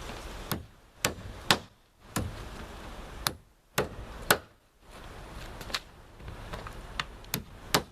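Hammer striking roofing nails through tarpaper felt into roof decking: about a dozen sharp, irregularly spaced blows, some coming in quick pairs as each nail is driven flat.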